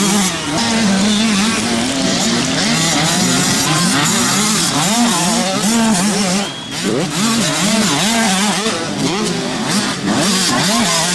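Several small two-stroke youth motocross bikes racing, their engines revving up and down over and over as the riders work the throttle and shift.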